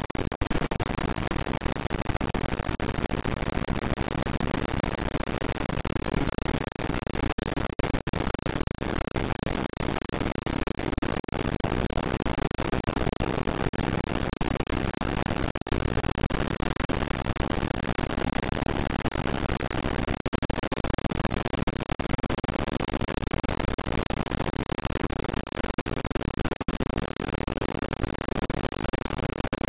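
Dense, steady noise from several layered audio tracks looped over a slice only a few milliseconds long in REAPER, with a few very short dropouts.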